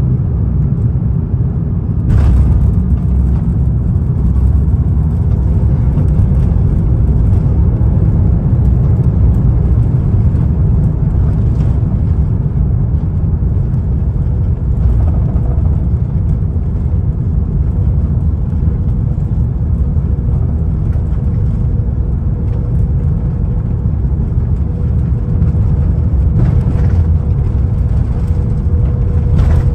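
Loud, steady rumble of an Airbus A330-900neo heard from the passenger cabin during landing. A sharp knock comes about two seconds in, and the rumble runs on at full strength after it.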